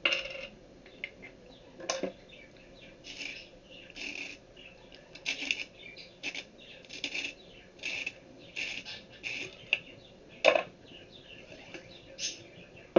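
A hand bicycle pump being dismantled on a table: irregular clicks, scrapes and light rattles of its metal parts and washers. There are a few sharper knocks, the loudest late on.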